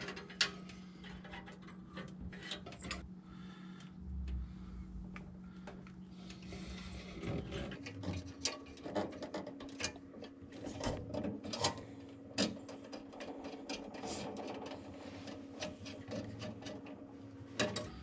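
Small metallic clicks and ticks of a furnace flame sensor being fitted back onto its burner bracket and its screw turned in with a screwdriver. The clicks come quick and irregular, thickest in the second half, over a steady low hum.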